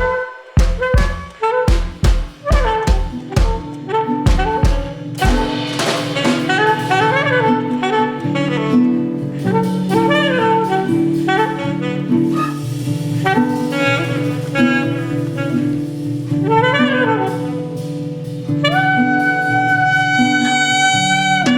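Free-improvised jazz on alto saxophone and drums: for about the first five seconds a run of sharp drum strikes with deep thumps, then saxophone phrases of held and sliding notes over a low sustained tone, ending on one long held note.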